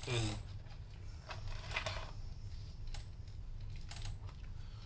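Scattered light clicks and short rustles of a small earbud box and its packaging being handled and opened, over a low steady hum.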